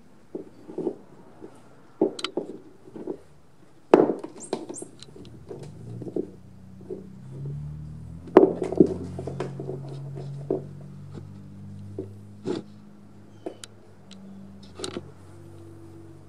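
Cat playing with a catnip toy on a wooden floor under a low cabinet: irregular knocks, bumps and scuffs as its body and paws hit the floor and furniture, the loudest about four and eight seconds in. A low hum sits underneath from about five seconds on.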